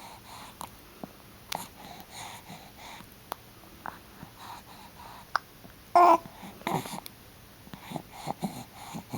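A two-month-old baby hiccuping: short, sharp hics about every two seconds, the loudest about six seconds in carrying a brief squeak of voice, with small baby grunts and breaths between.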